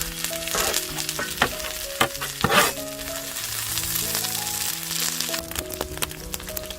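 Food frying in oil on a hot sadj griddle: a steady sizzle full of small crackles and pops, with a brief louder hiss about two and a half seconds in. Soft background music runs underneath.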